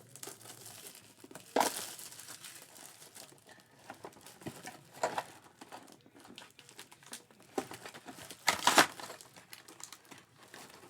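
Plastic wrapping on trading-card packaging being crinkled and torn open, with a few sharp tearing rips; the loudest comes near the end.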